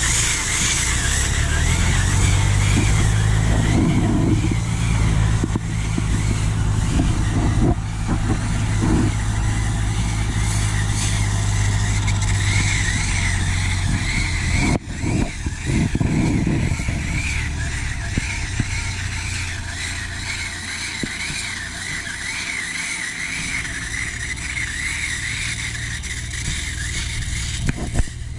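Farm tractor engine running steadily while towing a round-bale wrapper, with a wavering high-pitched squeal over it. About halfway through, the engine sound drops to a quieter, more distant running as the tractor pulls away.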